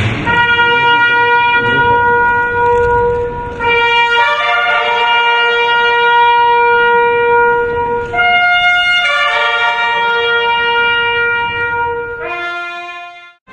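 A solo bugle-type brass horn plays a slow military honours call of a few long, held notes, several seconds each, with a brief higher note past the middle and two short notes before it cuts off.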